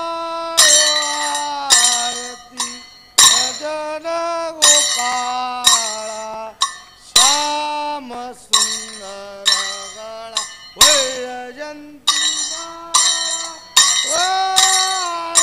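Temple arati music: a melody of long held notes that step and slide in pitch, over sharp metallic clinks of a ritual bell or small cymbals struck about once a second.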